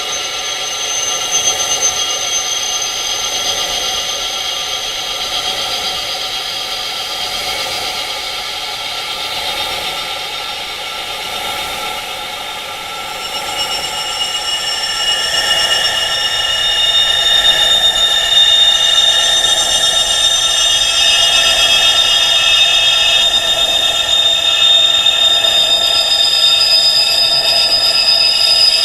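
Wind chimes ringing, many long overlapping high tones tuned to the pitch of tinnitus. The chiming swells louder, with higher tones coming in, about halfway through.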